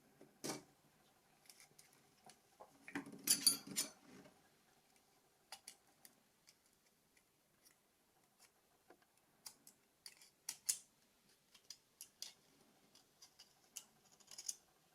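Scattered small clicks and taps of plastic phone shell parts being handled and pried apart, with a short cluster of scraping clicks about three seconds in.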